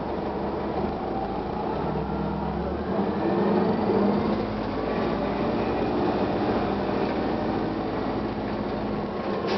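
Detroit Diesel Series 50 four-cylinder diesel engine of a 1999 Gillig Phantom transit bus running, with its drivetrain whine. The low engine note shifts about three seconds in, and a faint whine rises after that.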